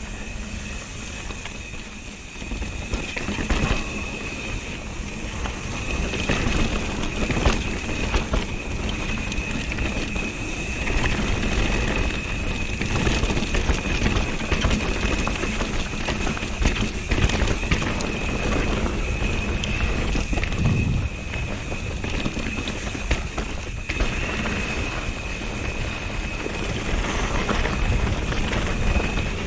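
Mountain bike descending a dirt trail at speed: tyres rolling over dirt and rock, with frequent knocks and rattles from the bike over bumps and wind on the microphone. A steady high-pitched whine runs under it throughout.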